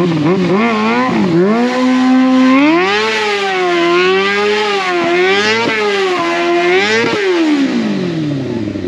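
Sport motorcycle engine revving hard during a stunt burnout, the rear tyre spinning the bike in circles. Quick throttle blips at first, then revs held high and wavering up and down, then the revs fall away steadily near the end.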